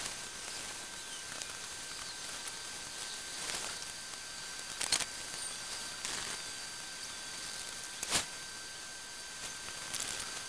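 Steady hiss with a thin high whine, broken by a few short sharp clicks, the loudest two about five and eight seconds in.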